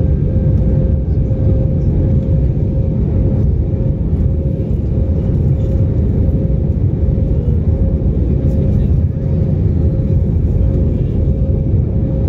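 Airbus A320 cabin noise in the climb after takeoff, heard from a window seat: a steady, even roar of the engines and airflow with a constant hum-like tone above it.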